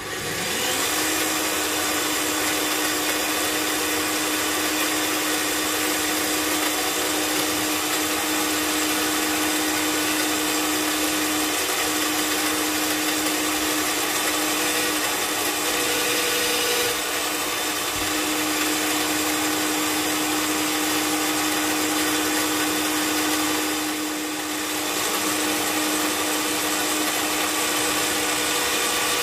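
Benchtop pillar drill starting up and running with a steady motor hum, its bit boring dowel holes through wood. The motor spins up within the first second, and the sound dips briefly about three-quarters of the way in.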